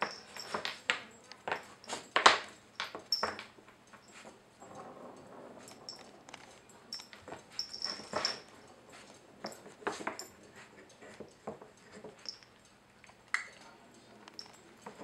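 Irregular wooden clacks and knocks from the pegs and board of a wooden dog puzzle toy as a puppy paws and noses at them, with the loudest knocks about two seconds in and again around eight seconds.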